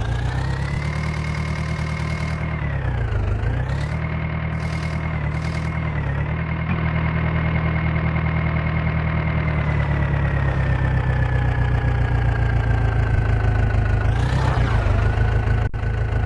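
Diesel engine running hard under load. Its speed rises at the start, dips about three seconds in and again near the end, and sags slowly in between.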